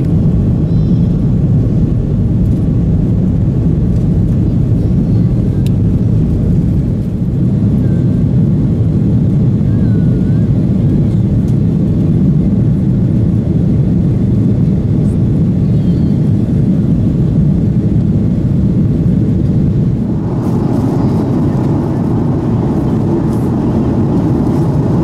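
Steady jet cabin noise inside an Airbus A330-300 climbing out: a deep, even rush of Rolls-Royce Trent 772B engines and airflow. About twenty seconds in the noise turns brighter and hissier.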